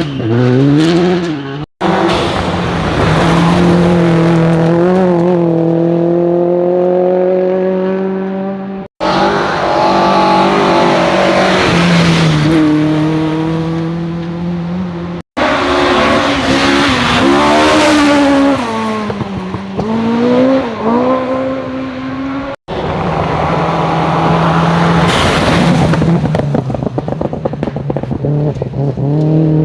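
Rally cars at full attack, engines revving hard and dropping back through gear changes and braking, in a run of clips joined by abrupt cuts.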